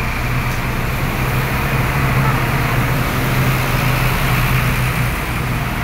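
Hino RN285 tour bus driving past on a wet road, its diesel engine running with a steady low drone over the hiss of heavy rain and wet tyres.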